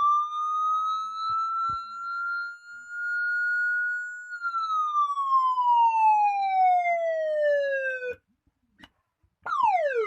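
Electronic siren through a horn loudspeaker: a slow wail that rises, holds, then falls steadily over about eight seconds and cuts off abruptly. After a pause of about a second, it starts a quick falling sweep near the end.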